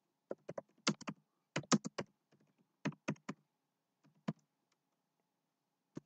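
Typing on a keyboard: quick runs of two to five key clicks with short gaps between them, stopping a little after four seconds in.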